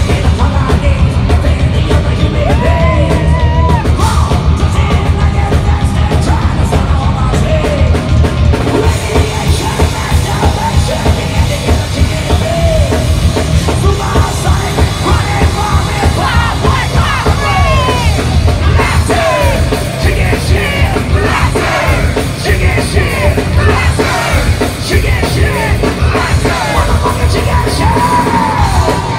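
Rock band playing loud live through a club PA: distorted electric guitars, bass and drums with a yelled, sung lead vocal, heard from within the crowd.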